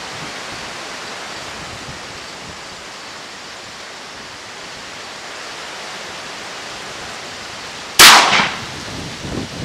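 A single shot from a Ruger Blackhawk .45 Colt revolver with a 7.5-inch barrel, firing a stiff handload: a sudden loud crack about eight seconds in that rings off over about half a second, with a fainter low knock about a second and a half later. A steady hiss of outdoor air noise lies under it.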